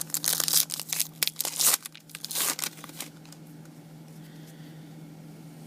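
Trading card pack wrapper being torn open and crinkled by hand, a quick run of sharp rustles and crackles that stops about three seconds in, leaving a low steady hum.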